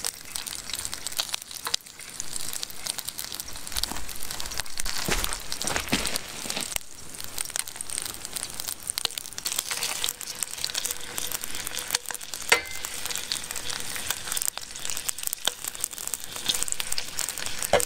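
Two whole brook trout sizzling in butter in a stainless steel pan: a steady crackle of fine spattering pops, with the odd sharper pop.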